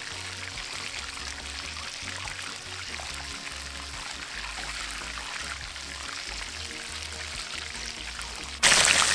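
Whole chicken deep-frying in hot oil in a cast-iron skillet: a steady crackling sizzle, over background music with a stepping bassline. Near the end the sizzle suddenly becomes much louder.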